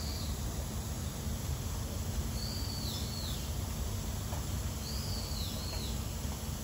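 A bird calling three times, about every two and a half seconds: each call is a high whistled note that slides down at the end. Under it runs a steady low background rumble.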